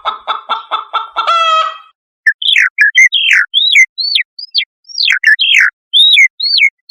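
Shrike calling loudly: about a second of rapid harsh chattering, then a short nasal note, then a run of clear whistled notes that each slide steeply down in pitch.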